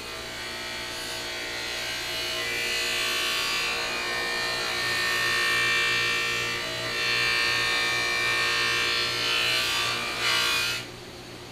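Bench buffer's cotton wheel, charged with green compound, polishing a 1966 Ford Galaxie stainless steel wheel cover: a steady, high, ringing whine over the motor's hum. It swells as the cover is pressed into the wheel and cuts off suddenly near the end as the cover is lifted away.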